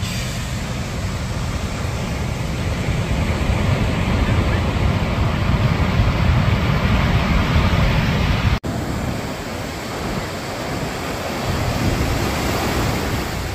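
Ocean surf breaking and washing up the beach, a steady rush that swells and eases, with wind buffeting the microphone. The sound cuts out for a split second about two-thirds of the way through.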